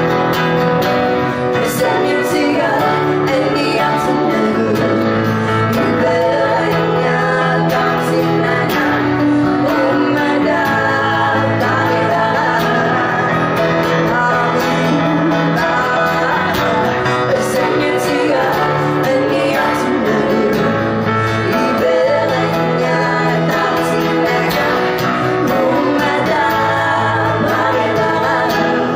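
Live music: several voices singing together, accompanied by a strummed acoustic guitar and a piano.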